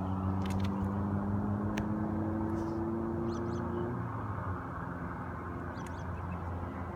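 A motor vehicle's engine running, its pitch rising slowly before it fades out about four seconds in, over a steady low hum; a few faint bird chirps.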